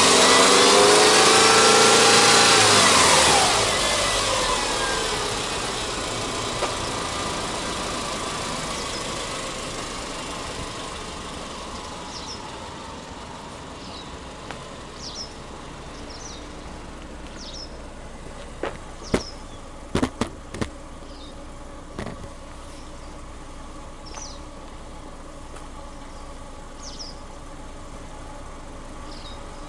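Subaru Legacy 2.0i's EJ20 flat-four engine revved, its pitch climbing and falling back within the first few seconds, then settling into a steady idle. A handful of sharp knocks come about two-thirds of the way through.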